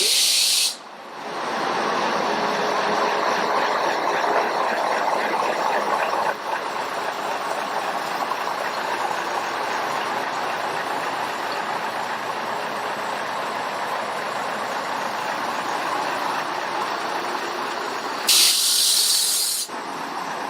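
Steam locomotive letting off steam: a loud burst of hiss at the start and another, about a second and a half long, near the end, with a steady rushing hiss in between.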